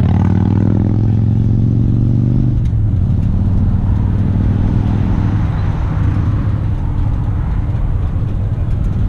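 Motorcycle engine idling close by, a steady low hum whose even pitch breaks up into a rougher rumble about two and a half seconds in.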